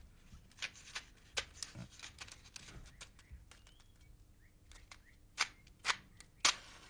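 Matches struck against the side of a matchbox, a string of short scratchy strikes. The three strongest come close together near the end, as a match catches to light a long bamboo tobacco pipe.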